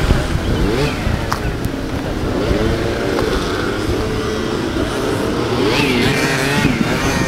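Several moped and scooter engines running and revving, their pitch rising and falling over a steady low rumble.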